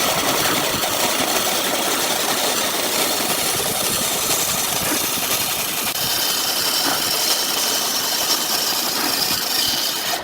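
Wood lathe running with a turning tool cutting the spinning wood, a steady hiss of cutting over the machine's hum. A faint high whine joins about halfway through.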